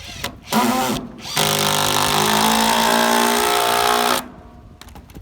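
Power drill run twice: a short burst of about half a second, then a steady whine of nearly three seconds that cuts off sharply.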